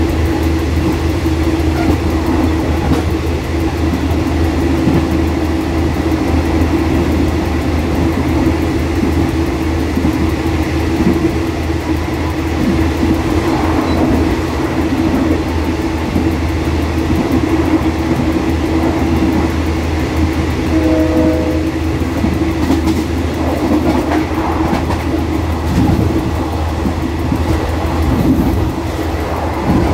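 Diesel locomotive running at speed, heard from inside the cab: a steady engine drone with wheels rumbling and clacking over the rails.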